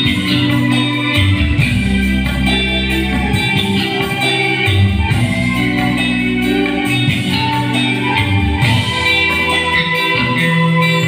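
Live band playing an amplified instrumental, with electric guitars, bass, keyboard, a drum kit and hand drums.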